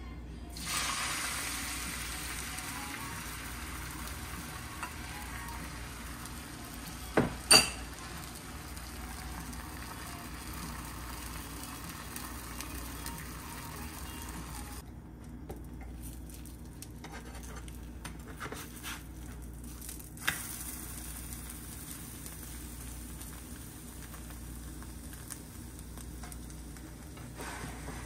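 Beaten egg sizzling as it hits a hot nonstick pan, loud at first about a second in and slowly dying down. Two sharp knocks come a few seconds later. The sizzle drops away abruptly about halfway through, leaving quiet frying with a few light clicks.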